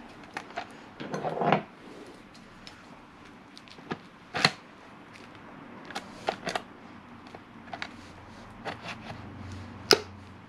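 Scattered light clicks and knocks of motorcycle fly-screen mounting parts being handled and fitted on a wooden table: the stainless-steel tubular bracket and black plastic clamp pieces tapping against the smoked screen and the table top. A brief rustle comes about a second in, and sharper knocks come about four and a half seconds in and near the end.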